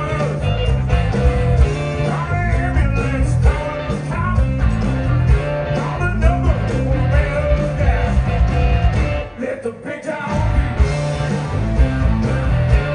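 Live blues-rock band: a man singing over an electric guitar and the rest of the band. About nine seconds in, the band breaks off for roughly a second, then comes back in.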